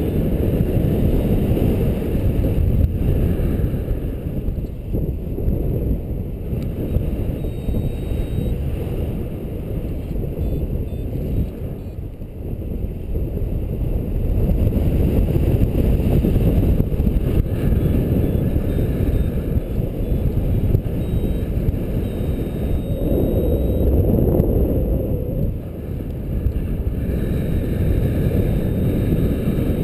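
Airflow buffeting the microphone of a paraglider in flight: a steady low wind rush that swells and eases, with a stronger gust about three-quarters of the way through.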